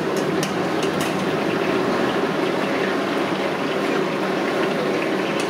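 Thick red chilli sauce bubbling in a wok over a high gas flame, with the steady rush of the burner and a few sharp pops in the first second.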